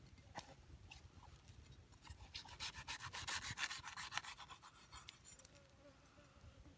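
Knife blade scraping and prying in the cut around the top of a green coconut, the fibrous husk rasping and crackling as the lid is levered loose. The scraping is densest from about two to four seconds in, with scattered scrapes and ticks around it.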